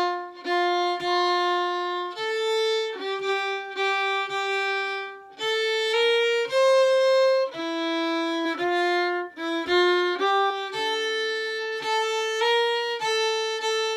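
Solo violin played with the bow: a Swedish folk melody of single held notes, changing every half second to a second, with short breaks between some notes.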